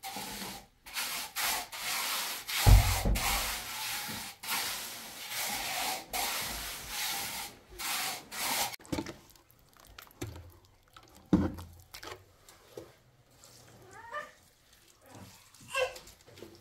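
Rough scraping strokes of masonry work in mortar and stone, about one or two a second for some nine seconds, with a heavy thud about three seconds in. After that come only a few soft knocks.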